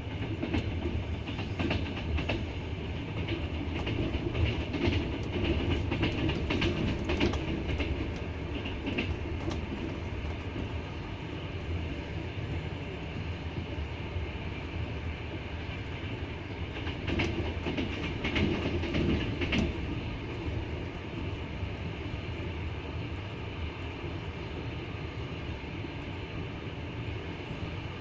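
Wheels of a double-decker passenger train clattering over the rail joints as it runs, over a steady rumble of the running train. The knocks come in clusters in the first third and again around two-thirds of the way through.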